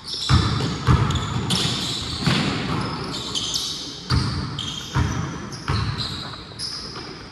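A basketball being dribbled on a gym floor: a run of bounces about one to two a second, unevenly spaced.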